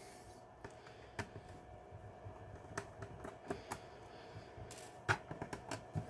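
Faint, irregular clicks and taps of a small screwdriver and screws on a laptop's plastic bottom case while the case screws are being taken out, a few clicks coming closer together near the end.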